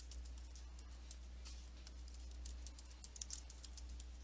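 Computer keyboard typing: a run of faint, irregular key clicks over a low steady hum.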